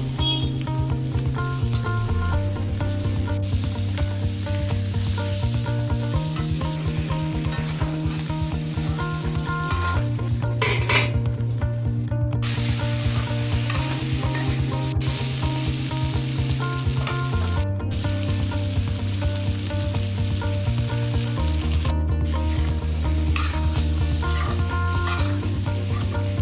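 Food sizzling and frying in a hot pan, stirred now and then, a steady crackle throughout.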